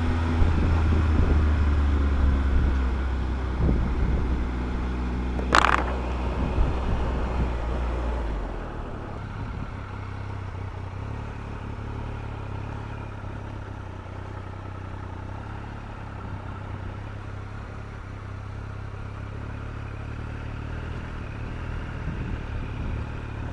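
Triumph Tiger motorcycle engine running as the bike slows and pulls in off the road, with a sharp click about five and a half seconds in. After about eight seconds the engine settles to a quieter, steady idle.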